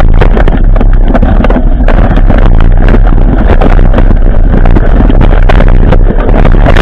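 Mountain bike ridden over a bumpy dirt track, heard through the riding camera's microphone: a loud, overdriven wind rumble with frequent clattering knocks as the bike and camera jolt over the ground.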